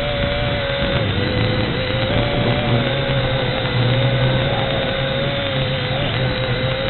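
V686G quadcopter's motors and propellers whining steadily, the pitch wavering slightly as the throttle changes.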